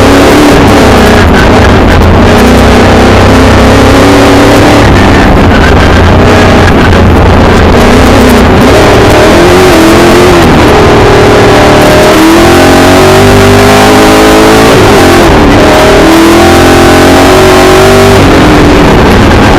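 Milner R5 off-road race car's 5-litre V8 heard from inside the cockpit, very loud, revving up and down repeatedly through the lap, with the pitch climbing and dropping several times in the second half.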